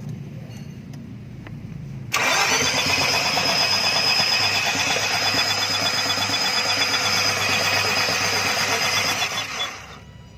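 Nissan Serena's starter motor cranking the engine, with a steady high whir, starting suddenly about two seconds in and stopping near the end.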